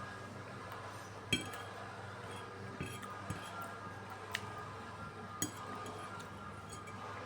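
Cutlery clinking against dishes or glass during eating: about five short, sharp clinks spread over several seconds, over a steady background hum.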